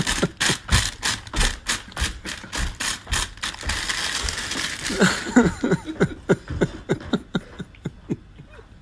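Foil crisp packet being crinkled and worked open by hand in quick, regular crackles, then more sparsely near the end.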